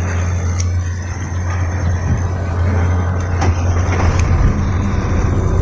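Sinotruk Howo truck's diesel engine idling, heard from inside the cab as a steady low hum, with a few sharp clicks.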